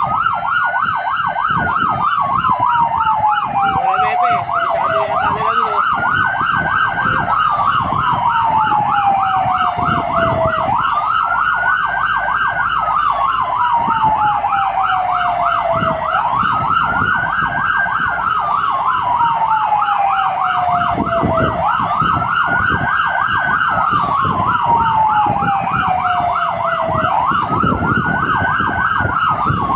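Fire engine's electronic siren sounding, heard from inside the cab. A slow wail rises quickly and falls away about every five and a half seconds, over a fast yelp that warbles several times a second. Low engine and road noise runs underneath.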